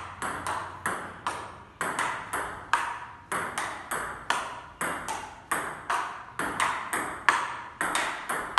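Table tennis rally: the ball clicking back and forth off the two bats and the table in a steady, unbroken rhythm of about two to three hits a second, each click with a short ring.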